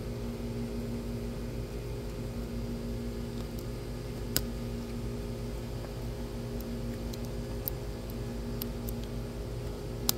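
Steady background hum, with a few sharp little clicks and ticks of plastic as the shrink-wrap label is peeled off a plastic toy capsule; the loudest click comes about four seconds in and another right at the end.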